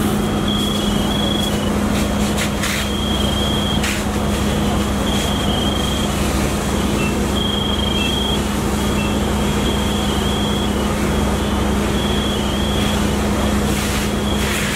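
Fire engine running steadily to drive its pump, a loud unbroken drone with a low hum, with short high electronic beeps coming and going over it.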